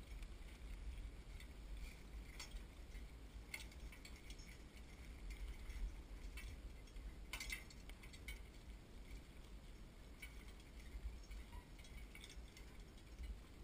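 Faint, scattered metallic clinks from a cart's harness and fittings over a low rumble as the cart rolls across grass.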